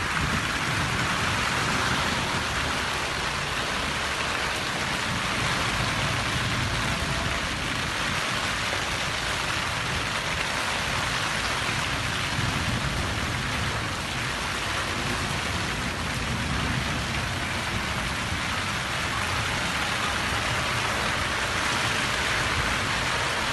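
Heavy rain falling steadily, an even hiss of rain on surfaces with no breaks.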